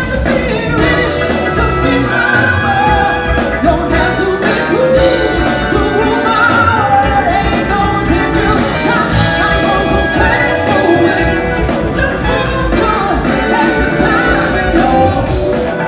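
Live band playing with a singer: drum kit, bass guitar and keyboard under a horn section of trumpet, saxophone and trombone.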